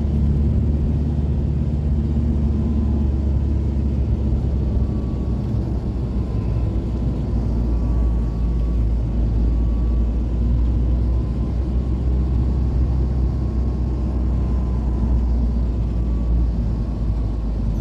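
Engine and road noise of a moving vehicle heard from inside it: a steady low rumble with tyre hiss, and a faint high whine that wavers slightly.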